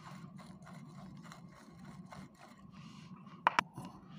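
Soldering iron tip scraped back and forth in a coiled brass-wire tip cleaner, a rapid scratchy rasping at about four or five strokes a second. Near the end come two sharp clicks in quick succession.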